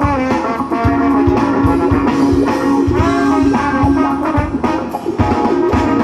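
Live band playing an instrumental passage: trombone and saxophones over electric guitar and drum kit, with a long held note about a second in.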